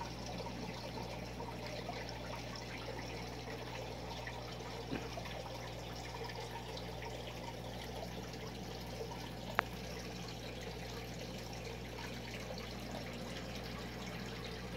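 Steady low hiss and hum, with faint scattered clicks of a box turtle gnawing at a fried chicken bone on a wooden floor, and one sharp click a little before ten seconds in.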